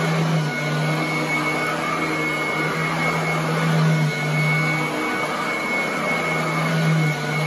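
Royal commercial upright vacuum cleaner running on carpet: a steady motor drone with a high screaming whine on top. The low hum shifts slightly in pitch every second or so as the vacuum is pushed and pulled over the pile.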